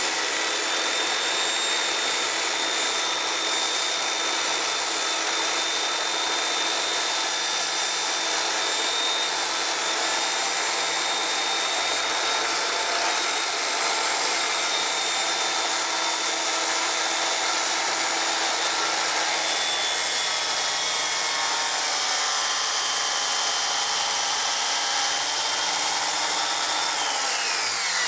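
Rockwell 7-1/4-inch circular saw cutting through plywood, the motor running steadily with a high whine over the noise of the blade in the wood. Near the end the whine falls in pitch as the saw winds down.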